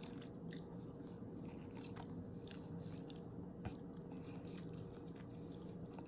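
A person chewing a mouthful of spicy instant ramen noodles, with faint, irregular wet mouth clicks over a faint steady hum.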